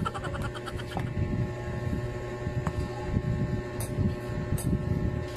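Wall air conditioner running with a steady low hum and rumble, with a few faint clicks.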